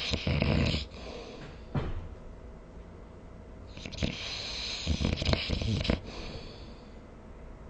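A sleeping person snoring: one breath dies away just under a second in, a short click comes near two seconds, then after a pause a long hissy breath with a low rattling snore in its second half runs from about four to six seconds.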